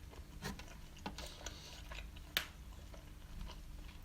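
A person chewing a mouthful of chips and doner kebab meat: soft, scattered wet mouth clicks, the loudest a little past halfway.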